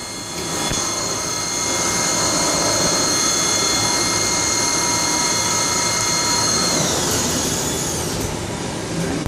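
DMG CTX 310 ecoline CNC lathe running with a steady high whine over a rushing noise; about seven seconds in the whine slides down in pitch as the spindle slows.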